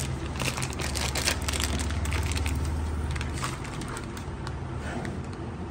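Clear plastic packaging bag crinkling and rustling as it is handled and pulled open, thinning out after about a second and a half. A steady low hum runs underneath for the first few seconds.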